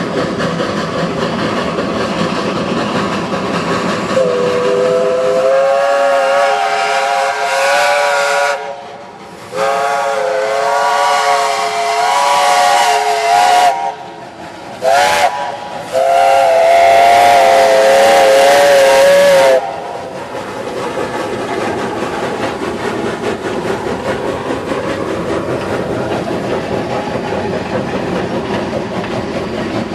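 Steam locomotive whistle blowing the long-long-short-long grade-crossing signal: two long blasts, a short one, then a final long blast, over the steady rush of the steam train passing with its passenger coaches.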